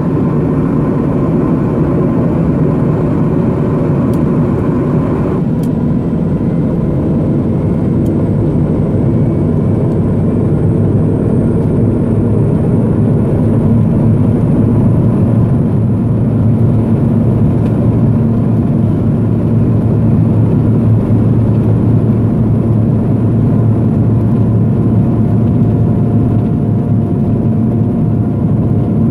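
Pilatus PC-12's single PT6A turboprop and propeller heard from inside the cabin while taxiing: a steady low drone with a thin high turbine whine that climbs slowly in pitch. A band of higher hiss in the cabin noise drops away about five seconds in.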